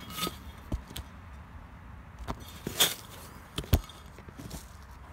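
A few scattered sharp clicks and knocks, the loudest about three-quarters of the way through, from hands handling a staked dog-proof raccoon trap in crusty snow.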